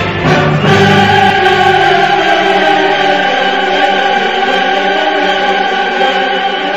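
Dramatic orchestral music with a choir singing long held chords; the low bass notes drop away about two seconds in.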